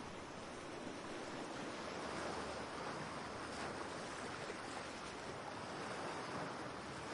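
Waves washing onto a shore: a steady hiss of surf that swells and eases gently, used as ambient background.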